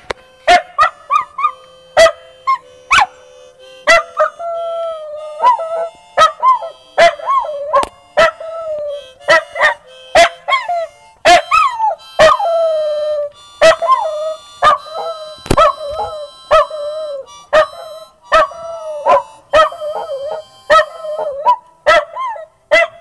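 A dachshund howling along to a harmonica, its howls wavering up and down in pitch over the harmonica's held notes, with short, sharp barks breaking in about once a second.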